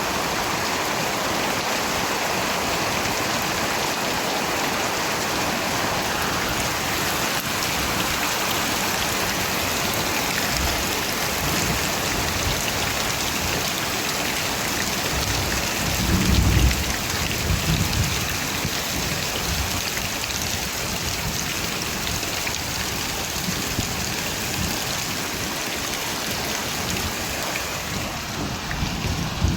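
Steady rain falling, with a low roll of thunder swelling past the middle and another rumble beginning near the end.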